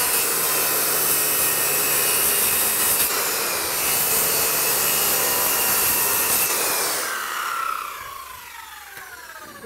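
Small handheld circular saw cutting through wall siding, running steadily under load for about seven seconds; then the trigger is released and the blade spins down with a falling whine.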